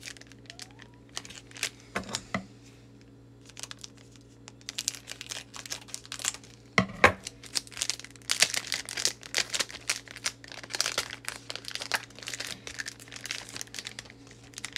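Foil Pokémon booster pack wrapper crinkling and tearing in the hands, with cards rustling and clicking as they are handled: a run of quick crackles that grows busier partway through, with one sharper snap about seven seconds in.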